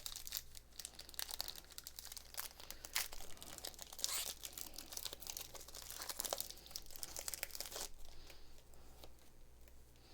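Pokémon trading-card booster pack packaging being torn open and crinkled by hand: dense crackling and tearing that thins out after about eight seconds.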